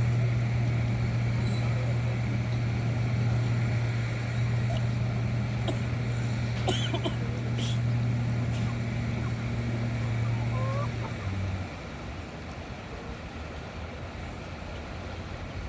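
A small engine running steadily at an even pitch, its hum dropping away about eleven seconds in. A few short calls and clicks come over it near the middle.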